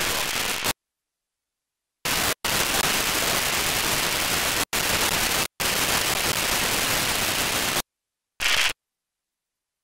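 Static hiss from a software-defined radio receiver in narrow FM mode on an L-band satellite frequency. The squelch cuts it abruptly on and off several times, and no signal can be heard in the noise.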